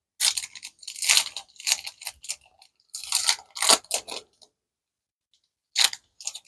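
A foil trading-card booster pack wrapper being torn open and crinkled by hand, in irregular bursts of crackling through the first four seconds, then one short crinkle near the end.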